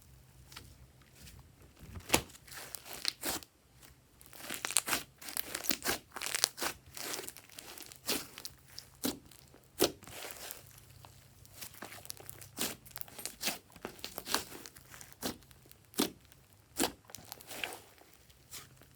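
Glossy slime being kneaded and stretched by hand, giving irregular sticky clicks, pops and crinkly crackles, several of them sharp and loud.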